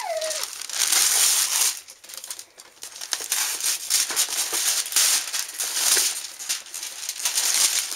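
Gift wrapping paper being torn and crumpled by hand as a present is unwrapped: irregular rustling and ripping, with a brief lull about two seconds in.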